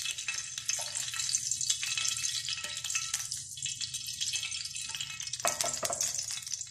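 Hot ghee sizzling and crackling in a nonstick frying pan, left over from frying cashews and raisins, with a few light knocks of the pan and spatula about a second in and near the end.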